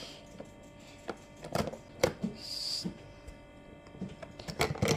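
A toy car and ice cubes clicking and knocking against a small plastic tub of water as the car is pushed around in it: scattered sharp knocks, several in quick succession near the end.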